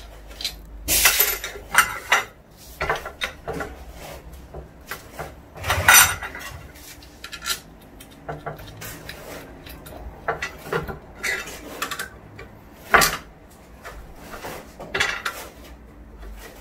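Metal parts clinking, knocking and scraping by hand as an angle grinder is seated on a welded metal 45-degree tile chamfering guide and fastened down. The knocks are irregular, and the loudest come about one, six and thirteen seconds in.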